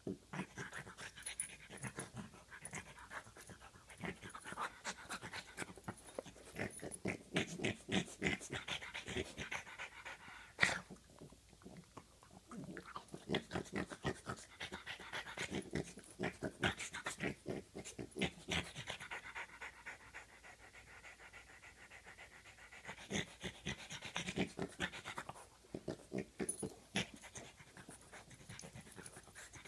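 French bulldog puppy breathing hard in quick, rapid puffs as it play-wrestles a person's foot, with a few short lulls and one sharp click about ten seconds in.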